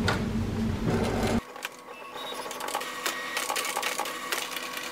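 HP Envy Inspire 7955e all-in-one printer's internal mechanism running just after its paper tray is closed: a faint steady whir with light clicking.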